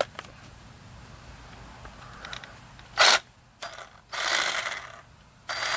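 Ryobi 18-volt cordless reciprocating saw worked on its variable-speed trigger, with clicks and a short run of the motor and blade. About five and a half seconds in, it settles into a steady slow run.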